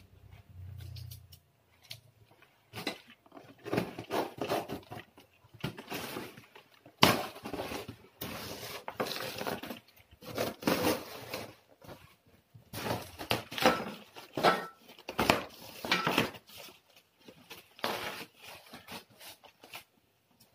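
Cardboard packaging being handled while a flat-pack table is unpacked: irregular rustling and scraping of cardboard, with knocks and clicks as panels and parts are shifted in the box.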